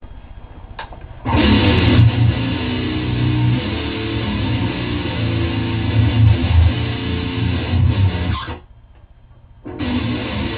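Electric guitar playing a death metal/grindcore riff. It comes in loud about a second in after a quieter lead-in, breaks off briefly near the end, and comes back in a second later.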